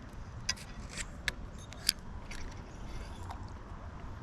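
A few sharp clicks and light rattles of fishing tackle being handled, the loudest about two seconds in, over a low steady rumble.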